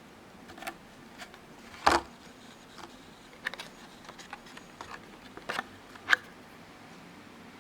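Scattered small clicks and taps from the all-metal Bergeon watch movement holders being handled and turned over, the loudest about two seconds in.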